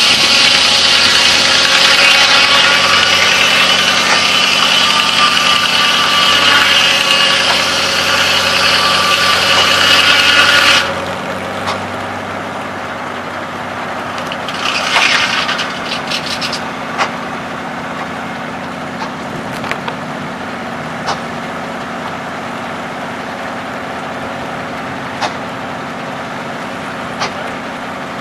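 Large circular sawmill blade cutting through a log, loud and high-pitched over the engine driving it. The cut ends suddenly about eleven seconds in, leaving the engine running steadily and the blade spinning free. A few seconds later there is a clatter of wood as the sawn slab is pulled away.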